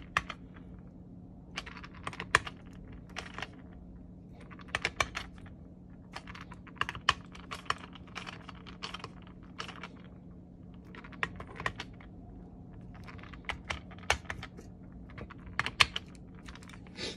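Hand screwdriver tightening the screws on an Autolite 2100 carburetor: irregular clusters of light, sharp clicks from the tool and screws, over a steady low hum.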